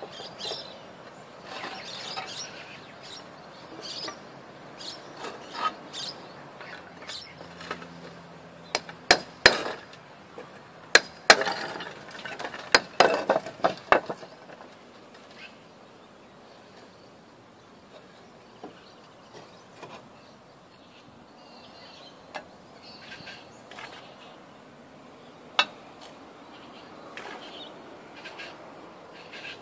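Hand work on roof ridge capping: scattered knocks, scrapes and clinks of ridge cap tiles and mortar being worked, with a run of sharp, loud knocks about nine to fourteen seconds in.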